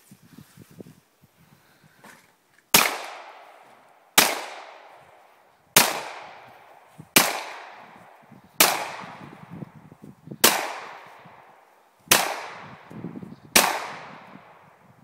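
Eight single shots from a 1911 pistol fired one-handed, spaced about one and a half seconds apart. Each shot is followed by a long fading echo.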